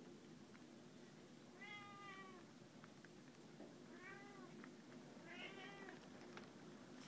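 An animal calling faintly three times, short cries about two seconds apart, each rising then falling in pitch.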